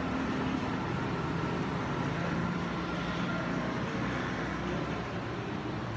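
Road traffic: a steady motor-vehicle engine hum with road noise.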